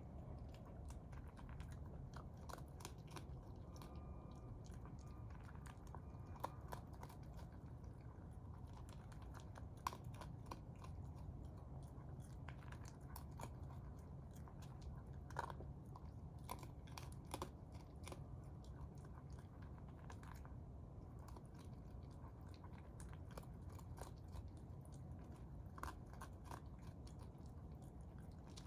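Raccoon chewing and crunching food: many small, irregular crunching clicks over a steady low hum.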